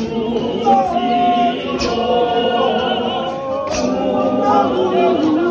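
Church congregation singing together unaccompanied, men's and women's voices in a crowd, sustained sung notes shifting in pitch.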